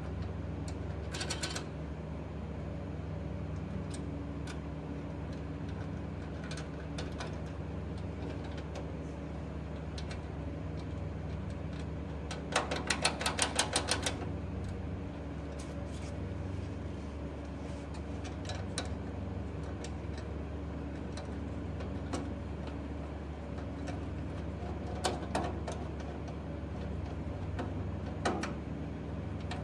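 Ratchet wrench clicking as nuts are run down on a steel plate: one quick run of about a dozen clicks near the middle, with scattered single clicks and knocks, over a steady low hum.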